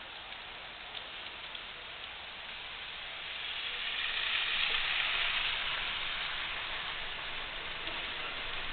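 A steady rain-like hiss that swells about three and a half seconds in and slowly eases off, with a few faint ticks.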